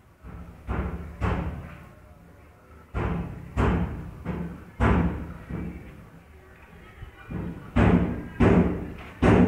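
Heavy thuds ringing in a bare, empty room, coming irregularly in pairs and clusters about half a second apart, with short pauses between the clusters.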